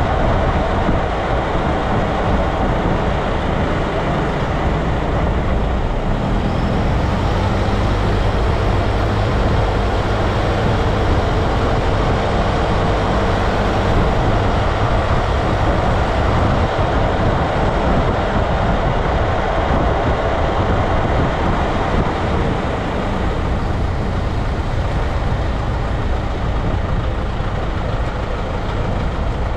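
Road noise from beneath a moving vehicle: tyres rolling on asphalt and air rushing past the underbody, over a low steady hum from the drivetrain and exhaust.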